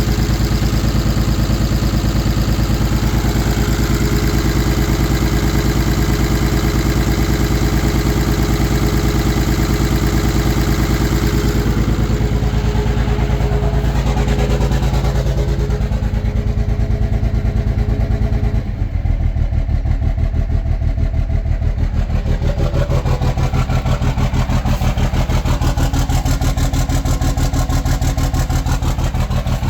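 Engine with bad injectors running at high idle, then dropping about twelve seconds in and settling by about nineteen seconds to a lower regular idle in which the separate firing pulses can be heard.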